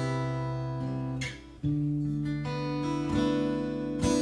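Takamine acoustic guitar strummed with a partial capo clamping four strings, while the open B and high E strings ring over each chord as pedal notes. The sound dips briefly about a second and a half in before a new chord is struck, and the chord changes again around three seconds.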